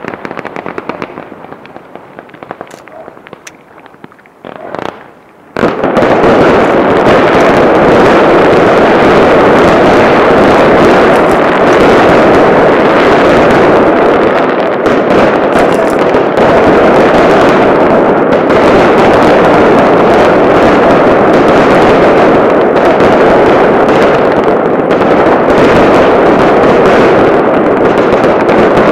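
Fireworks display: crackling bursts fade for the first few seconds, then about five seconds in a sudden barrage of rapid shell bursts and crackle sets in. It runs on as a dense, very loud, unbroken din.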